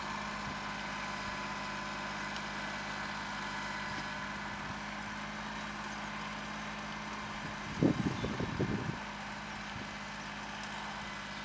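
Small engine of a trencher running steadily as the machine cuts a trench through turf, with a short burst of low thumps about eight seconds in.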